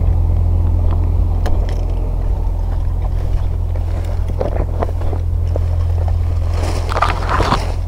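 A motor engine running steadily with a continuous low drone, and a short loud rushing burst about a second before the end.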